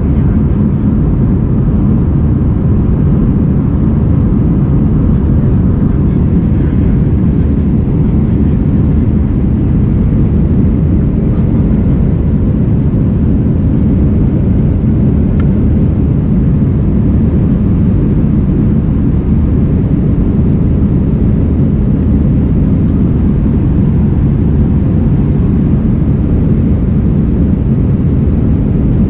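Airbus A319 jet engines and airflow heard inside the passenger cabin: a loud, steady, deep roar with no change in pitch, typical of the aircraft under power in flight.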